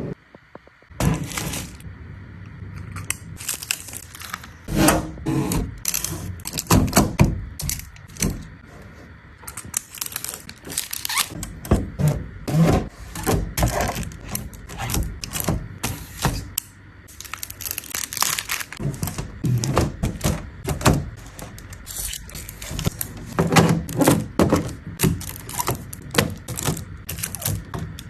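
Food containers, bottles and packaging handled and set down while restocking a fridge: a steady run of knocks, clacks and taps, with some crinkling of wrappers.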